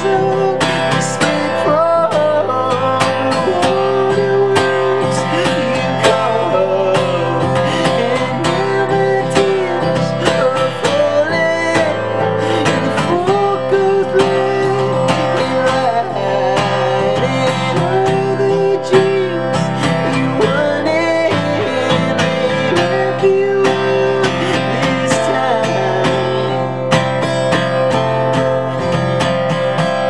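Acoustic guitar strummed steadily, playing an instrumental passage with a melodic figure that repeats about every two seconds.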